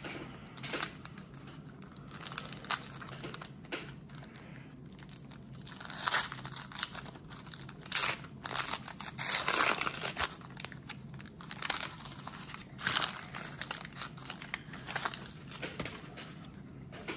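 Wax-paper wrapper of a 1991 Donruss baseball card pack crinkling and tearing as it is opened by hand, in irregular bursts that are loudest a little past the middle.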